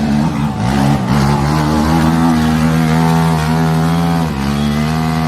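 ATV engine running at a fairly steady speed. Its pitch wavers in the first second or so, then holds, with a brief dip about four seconds in.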